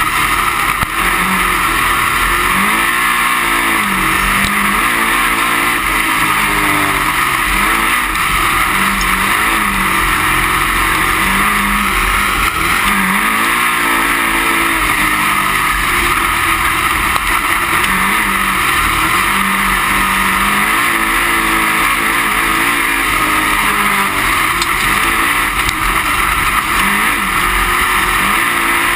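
A dirt-track race car's engine heard from inside the cockpit at racing speed, under a loud steady rush of engine and wind noise. The engine note dips and climbs again about every ten seconds.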